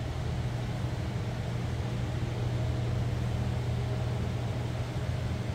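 Steady low hum with an even hiss beneath it: the background room tone of a large building, with no knocks, taps or other events.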